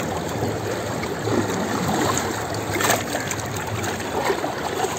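Shallow water of the River Ganga flowing fast around feet standing in it, a steady rushing wash with a brief louder splash about three seconds in.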